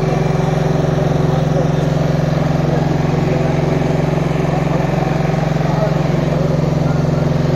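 An engine running steadily at one unchanging speed, its hum constant throughout, with faint voices behind it.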